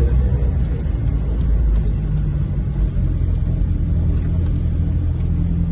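1946 Morris 8 Series E's four-cylinder side-valve engine running with a steady low rumble, heard from inside the cabin as the car drives along.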